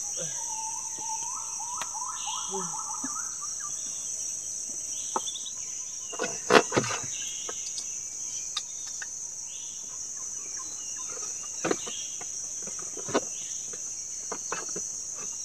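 Steady, high insect chorus from the riverside forest, with a short warbling bird call early on and a few faint chirps. Several sharp knocks and clicks of cooking gear being handled in a wooden boat cut through it, the loudest about six and a half seconds in.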